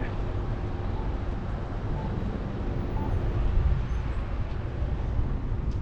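Steady low rumble of street noise heard from a moving bicycle: wind on the microphone and passing traffic, with no single event standing out.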